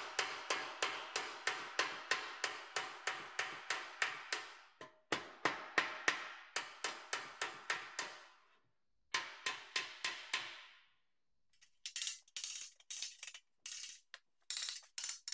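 Small hammer tapping the thin sheet-steel side of an old toolbox against a hand-held dolly to straighten the bent wall, about four sharp metallic blows a second in several runs with short pauses. Near the end the taps turn quicker and lighter.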